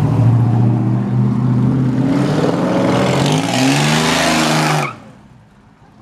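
Engines of classic cars driving past: first the low, steady running of a rat-rod 1940s pickup truck, then a hot-rod coupe with an exposed engine and open exhaust headers revving and accelerating past, its pitch rising for a couple of seconds. The engine sound cuts off suddenly near the end.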